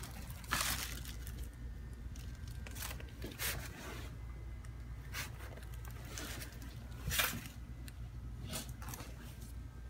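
Scattered brief scrapes and rustles of handling, the loudest about half a second in and just after 7 s, over a steady low hum of room tone.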